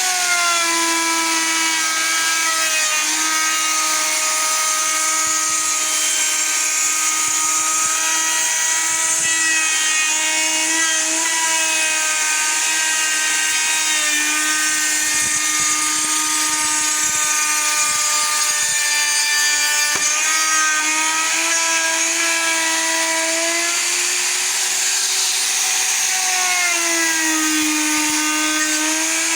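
Large electric router running continuously with a steady high motor whine, its pitch sagging and recovering several times as the bit is loaded cutting a recess into the edge of a wooden door, with the deepest dip near the end.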